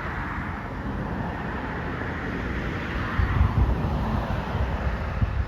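A car going by on the road, its tyre noise swelling and then fading, with wind buffeting the microphone in low rumbles during the second half.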